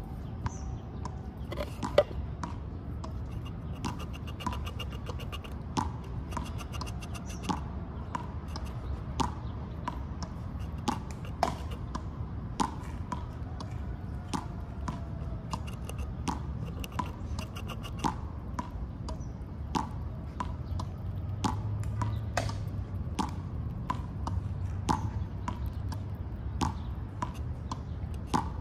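Outdoor background with a low steady rumble and sharp clicks about once a second, each with a short bright ring.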